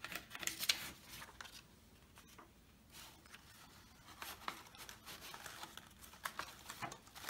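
Soft rustling and crinkling of paper with a few light taps and clicks, as a paper model and a glued paper strip are handled and pressed into place.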